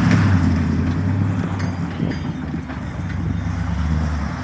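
Pickup truck engine running with a steady low hum that slowly fades, its deepest note dropping out shortly before the end.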